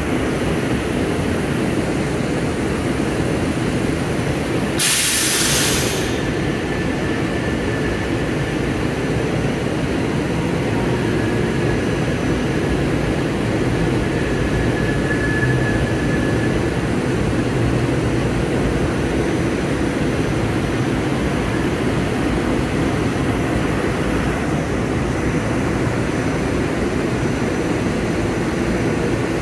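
SEPTA Silverliner IV electric railcar standing with its onboard equipment running as a steady hum and rush. About five seconds in comes a short, sharp hiss of released air.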